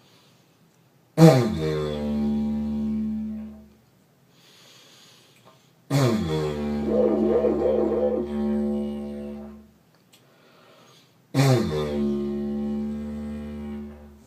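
Didgeridoo played in three separate low drones, each beginning with a sharp loud attack and then holding steady for about three to four seconds. The middle drone has a wavering, wah-like shift in its tone. A breath is drawn between drones, and each drone ends when the player runs out of air, the sign of a player without circular breathing.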